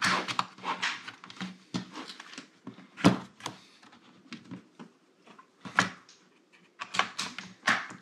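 Plastic clicks and snaps of a Dell G15 laptop's bottom cover being pried loose from its clips and handled against the desk. Scattered sharp clicks, the loudest about three seconds in, with a quick run of them near the end.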